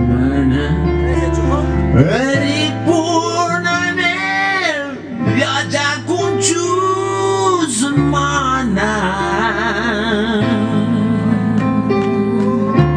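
Live band playing a blues-style song: a male singer singing long, wavering lines over guitar and steady bass notes.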